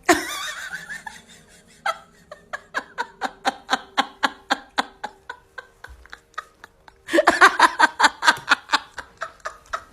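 Laughter in quick rhythmic bursts, about four or five a second, softer at first and louder from about seven seconds in.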